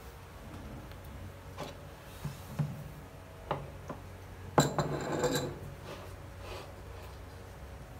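Tableware being moved on a desk: a few light knocks, then, a little past halfway, a glass of coffee with a metal spoon standing in it is set down, and the spoon clinks and rings against the glass. The clink is the loudest sound.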